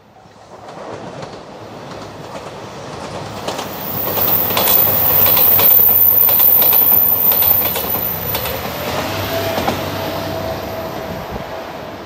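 JR Shikoku 2700 series diesel limited express train passing close by, its wheels clacking over the rail joints. It builds from about a second in and is loudest around four to eight seconds in. A steady whistling tone comes in after about eight seconds as the train moves away.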